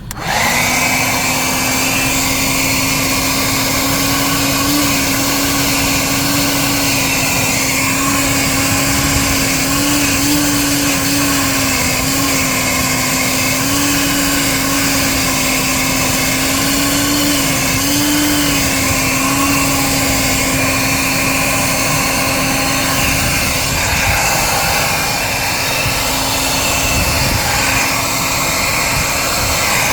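Bon Aire 1-gallon wet/dry car vacuum switched on and running, its motor starting abruptly and then holding a steady whine that wavers slightly in pitch.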